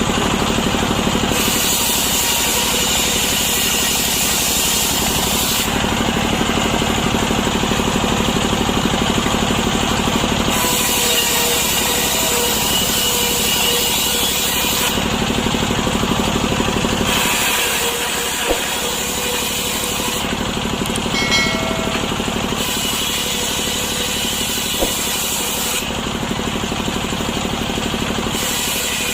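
Two-stroke chainsaw running under load as it rips lengthwise through a freshly felled, wet breadfruit log. Its tone changes every few seconds.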